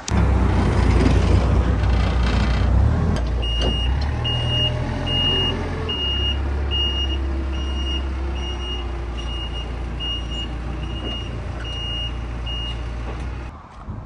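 Diesel engine of a Thwaites 6-tonne site dumper working under load as it is driven up onto a low-loader trailer deck, louder for the first few seconds. From about three seconds in, its reversing alarm beeps about twice a second until shortly before the end.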